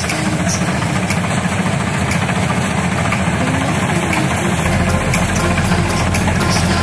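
A 75 hp tractor-mounted Dasmesh 912 combine harvester runs steadily as it cuts and threshes standing rice. Its engine and threshing machinery make a dense, steady drone that gets slightly heavier about two-thirds of the way through as the machine draws closer.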